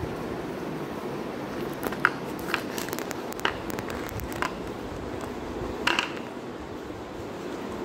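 Rottweiler puppy biting and mouthing a clear plastic tub: scattered sharp clicks and knocks of teeth and plastic on the tile floor, the sharpest about two seconds in and a small cluster near six seconds, over steady background noise.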